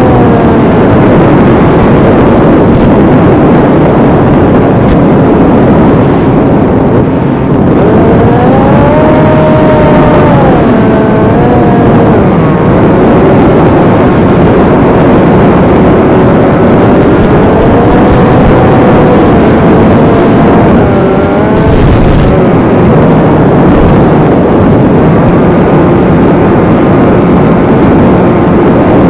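Electric motor and propeller of an RC Versa Wing flying wing whining in flight, the pitch rising and falling several times with the throttle, over loud rushing wind noise.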